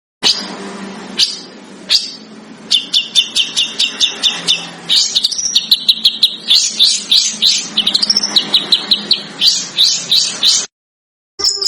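Recorded songbird besetan call: a few separate sharp notes, then a fast chattering run of repeated high notes at several per second. It cuts off abruptly near the end, and after a brief gap a different bird recording begins.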